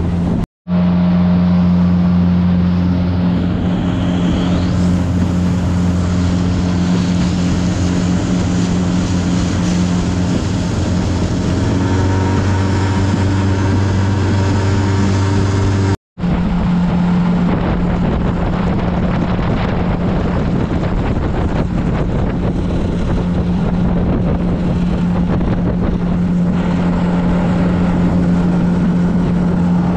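Small boat's motor running steadily under way, with strong wind noise on the microphone. The sound drops out briefly twice, about half a second in and about sixteen seconds in.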